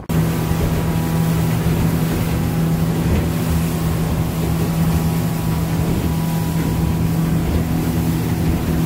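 Small motorboat under way at speed: its engine running with a steady, even hum, over a constant rush of wind and water noise.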